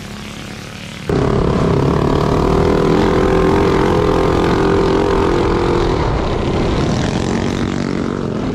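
A minibike engine is heard at moderate level, then jumps suddenly to a much louder minibike engine heard close up on the rider's helmet camera. The engine runs hard at a steady high pitch and eases off slightly about six seconds in.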